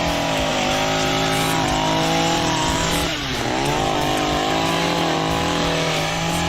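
Engine running at high revs over a steady low hum, its pitch dipping and climbing back about three seconds in.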